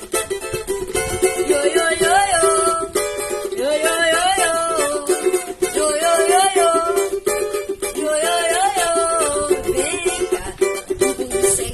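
Samba/pagode music played live: small plucked strings strumming in rhythm, percussion, and a voice singing the melody.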